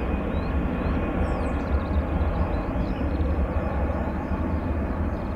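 Boeing KC-135T Stratotanker's four CFM56 (F108) turbofan engines climbing away after takeoff: a deep, steady jet rumble, slowly fading as the aircraft recedes.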